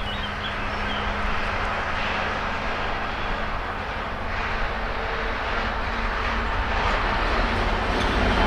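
Diesel freight locomotive hauling a coil train, its engine running in a steady low drone that grows louder as it approaches.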